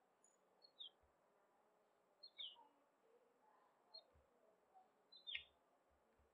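Near silence, with about four faint, short high chirps that fall in pitch and a few soft low thuds.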